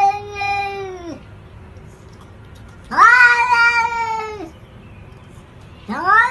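A cat giving long, drawn-out yowling meows. One tails off about a second in, a second lasts about a second and a half from about three seconds in, and a third starts near the end.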